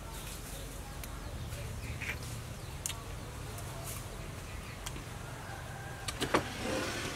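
Faint clicks of eating with the fingers at a table, then near the end a quick cluster of sharper clicks and a short scrape as a ceramic plate is taken up off the wooden table top, over a steady low hum.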